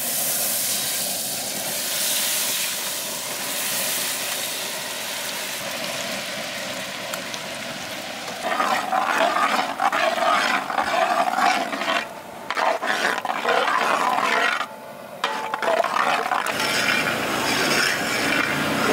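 Butter sizzling as it melts in a large hot metal pan. From about halfway it is stirred with a metal ladle, adding scraping against the pan over the sizzle.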